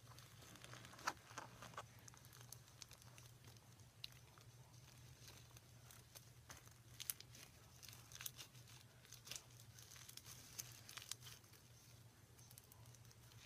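Pink slime mixed with foam beads squeezed and kneaded by hand, giving faint, irregular crackling and popping as the beads crunch.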